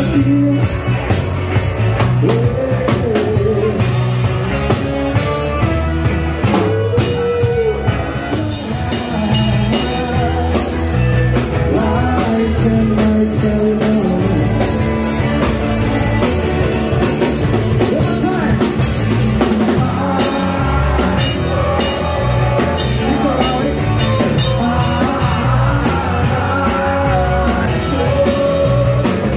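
Live rock band playing: drum kit, bass guitar, acoustic guitar and two saxophones, one a straight soprano sax, with a male lead singer.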